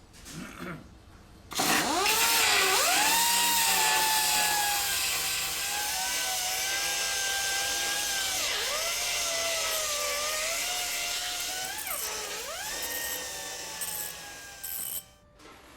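A handheld power tool running with a high motor whine over a hiss; its pitch dips and recovers several times as it is pressed into the work, and it stops near the end.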